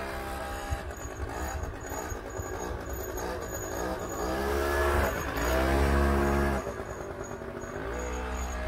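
100cc two-stroke motorcycle engine running as the bike is ridden. It revs up about four seconds in and is loudest and highest-pitched until about six and a half seconds, when the revs drop sharply as the throttle closes. It then runs on at a lower steady pitch.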